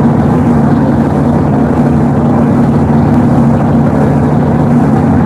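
A small golf-cart engine running steadily while driving, heard from aboard the cart as an even, low drone.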